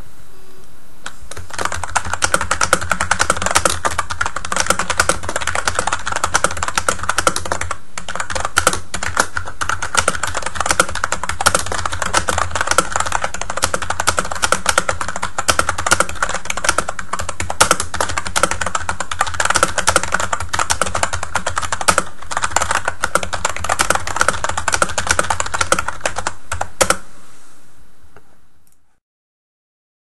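Fast typing on an Emarth EM-601 rubber-dome-over-membrane keyboard: a continuous patter of key presses, each bottoming out. There is a brief pause about eight seconds in, and the typing stops near the end.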